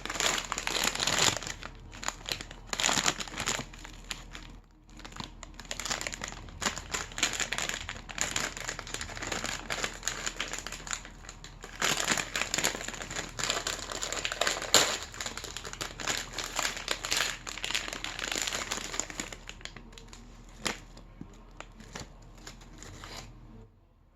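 Plastic snack bag of Cheez-It Snap'd crackers crinkling and crackling as it is handled and opened, with a brief pause partway through.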